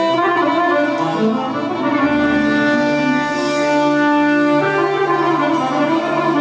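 Live Serbian folk music led by an accordion, playing long held melody notes over chords and a bass line that comes in about two seconds in.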